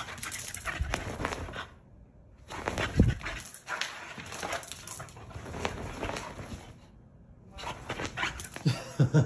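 Staffordshire Bull Terrier wriggling and rubbing itself on a rug and bedding in excited greeting, rustling and scratching in three bursts, with short low vocal sounds from the dog near the end.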